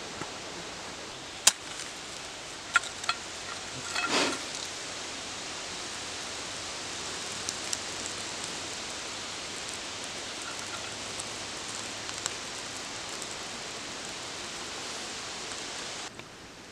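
A few sharp clicks, then a wooden match struck, a short scratchy flare about four seconds in, to light birch bark for a campfire. A steady hiss runs underneath.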